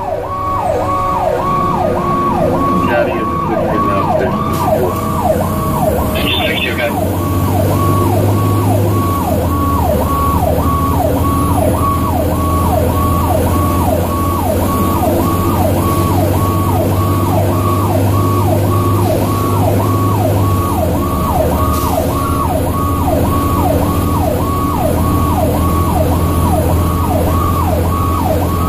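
The rescue truck's own siren, heard from inside the cab, sweeping up and down in a fast yelp of about two sweeps a second. Under it runs the truck's diesel engine, its drone shifting in pitch a couple of times as it changes speed.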